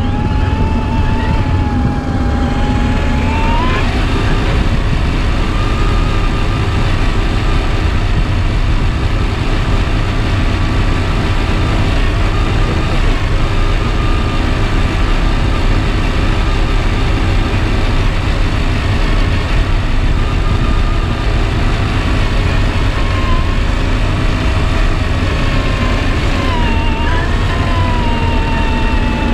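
Electric motor and gear whine of an RC4WD Desert Runner 1/10 scale truck driving, the pitch rising and falling with the throttle over a steady low rumble.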